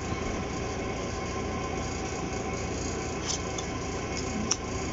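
Room air conditioner running with a steady hum and hiss, a little noisy since it was recently cleaned. Two light clicks of tarot cards being handled come over it in the second half.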